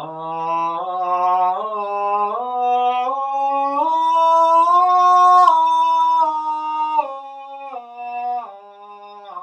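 A man singing unaccompanied on one held open vowel, improvising freely as a vocal exercise. The pitch climbs step by step to its highest and loudest about five seconds in, then steps back down.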